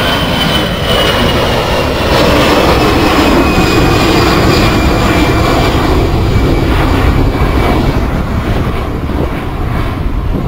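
Airbus A320's twin jet engines at takeoff thrust as the airliner climbs away: a loud, steady rumble with a thin high whine that slowly drops in pitch, the highest sounds fading near the end.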